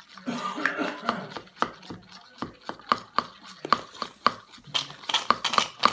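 Rapid repeated taps of a utensil against a bowl as slime ingredients are stirred, after a brief scraping rustle at the start; the taps get quicker and louder toward the end.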